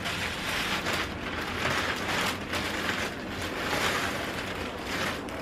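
Rustling of clothing and plastic packaging being handled, a continuous papery rustle that swells and fades unevenly.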